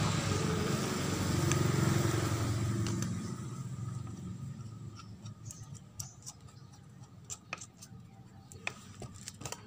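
A motor vehicle engine runs for the first three seconds or so, then fades away. After that come scattered small metallic clicks and taps as a bolt and washer are fitted by hand to a motorcycle engine's cam sprocket.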